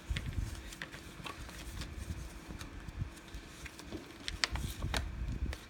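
Sheet of paper being folded and creased by hand into a paper airplane on a glass tabletop: soft rustling with scattered crisp crackles, the sharpest about four and a half and five seconds in.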